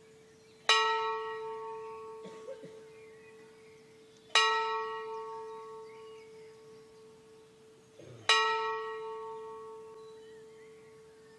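Large bell hung in an open metal frame, struck three times about four seconds apart, each stroke ringing out with a steady hum tone and bright overtones that slowly die away.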